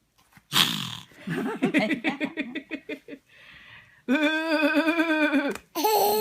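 A toddler imitating a snore: a sharp, noisy breath about half a second in, then a rapid rattling, pulsing stretch, followed by two long held voiced sounds from the child.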